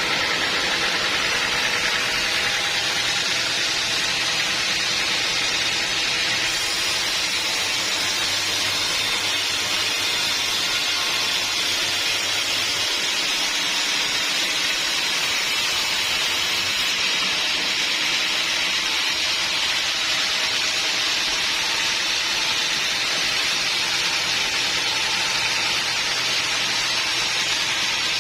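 Sawmill saw running steadily with a constant hissing noise and a faint underlying machine hum.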